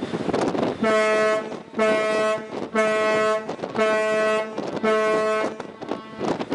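An Arleigh Burke-class destroyer's ship's horn sounds five short blasts, about one a second, over wind noise on the microphone. Five short blasts is the international maritime signal for danger of collision, sounded at another ship approaching too close.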